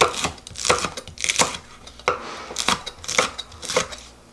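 Kitchen knife slicing chili peppers on a wooden cutting board. Each cut ends in a crisp knock of the blade on the board, about every half second.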